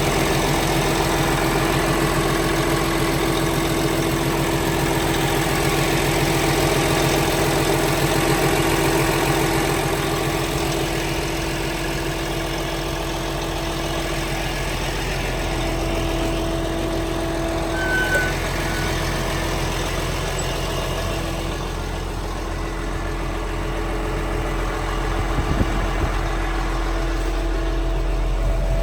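Liebherr PR756 bulldozer's diesel engine idling steadily, its level dipping slightly now and then.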